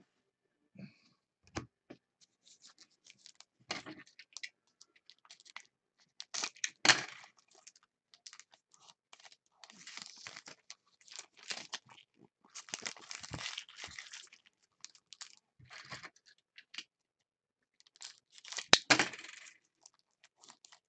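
Football trading cards being handled by hand: cards sliding and flicking against one another and a foil pack wrapper rustling and tearing, in many short scrapes, with one sharp loud click near the end.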